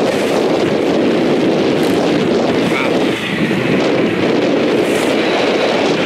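Steady wind rushing over the microphone on an open sailboat at sea, an even noise with a brief lull about three seconds in.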